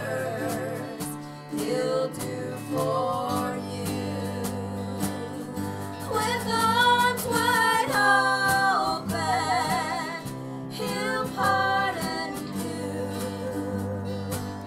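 Women singing a gospel song in harmony, with vibrato, accompanied by two strummed acoustic guitars and a cello; the voices swell loudest around the middle.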